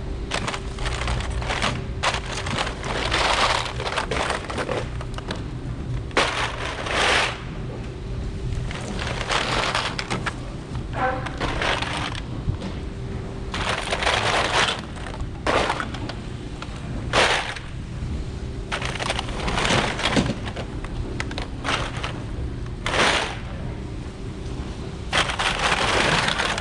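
Scrap metal being unloaded: repeated crunching and clattering crashes, each a fraction of a second to about a second long and coming every second or two, over a steady machine hum.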